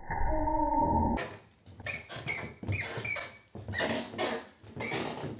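A jacuzzi bath creaking and squeaking under a person's weight, as a run of short, irregular squeaks, which the plumber puts down to a missing support leg. The first second is electronic music that cuts off suddenly.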